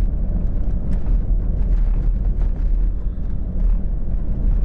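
Vehicle on the move: a steady low road and engine rumble with wind noise.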